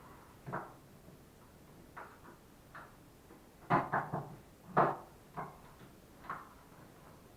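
Irregular knocks and clatter of wooden workpieces being handled, with a quick run of three louder knocks near the middle and a single sharp one just after.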